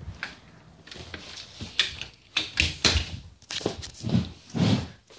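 Irregular clicks, knocks and rustles of a handheld phone being moved and jostled, with two dull thumps about four seconds in.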